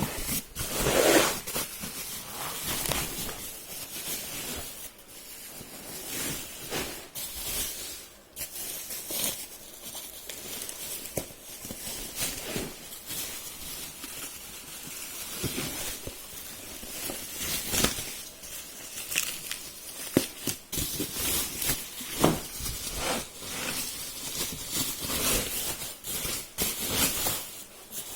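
Packing material being handled as a keyboard is lifted out of its shipping box: irregular rustling, crinkling and tearing of wrapping, with scattered sharp knocks and clicks.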